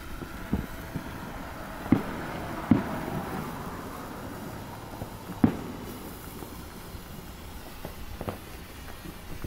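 Fireworks going off: a hissing burn for the first few seconds, with several sharp bangs, the loudest about two, nearly three and five and a half seconds in.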